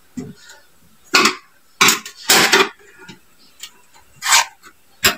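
Hard plastic parts of a concealed-cistern flush-plate frame knocking and clicking, about five sharp knocks and scrapes, as its push rods are pushed in and twisted to lock.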